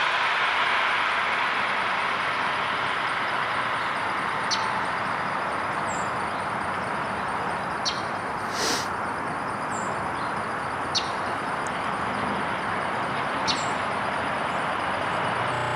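Porsche 911 (997) with a Borla aftermarket exhaust driving away, its sound fading over the first several seconds into a steady rush. A few short high-pitched chirps are heard along with it.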